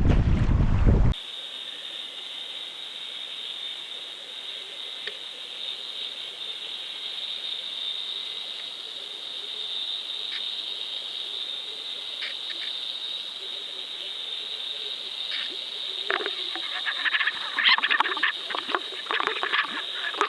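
Wind buffeting the microphone cuts off suddenly about a second in, giving way to the audio of an underwater fishing camera: a steady high-pitched whine over faint hiss, with scattered clicks that thicken into a cluster of crackles over the last few seconds.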